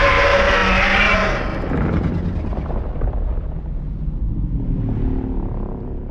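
Godzilla roar sound effect: a harsh, shrieking roar that sinks after about a second and a half into a long, low rumbling tail.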